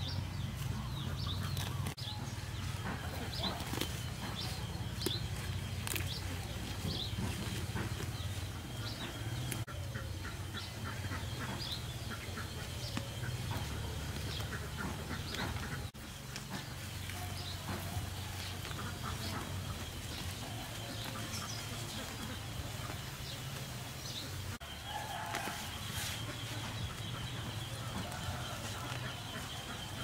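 Chickens and other birds calling in short chirps and clucks, scattered through, over a steady low rumble and a faint steady high tone.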